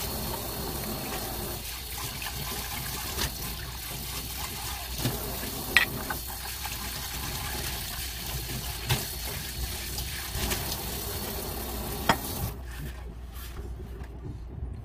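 Kitchen tap running into a stainless steel sink while glass bowls are rinsed under it, with a few sharp knocks of glassware; the water is shut off near the end.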